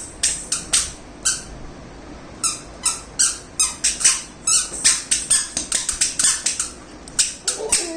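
Squeaker shoes squeaking with each step: a quick, irregular run of short, high squeaks, with a pause of about a second in the middle. A voice starts near the end.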